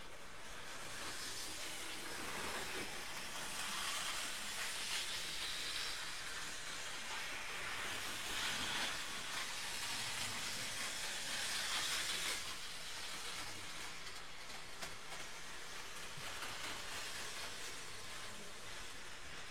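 Model train running along the layout's track, a steady hiss that grows louder from about two seconds in and falls back after about twelve seconds.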